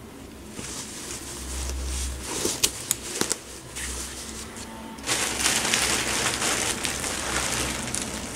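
Hands rustling and crinkling as they stuff loose fiberfill into a quilted fabric pillow cover, with a few light clicks around two and a half to three seconds in and a louder, longer stretch of rustling from about five seconds to near the end.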